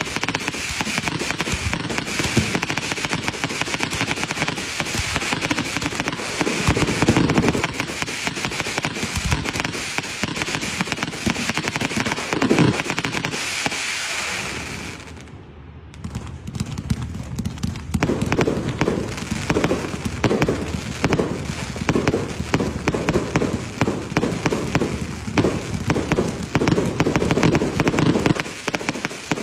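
Fireworks going off in a dense, continuous crackle of many small bangs, with deeper thuds mixed in. The sound drops away briefly about halfway through, then picks up again.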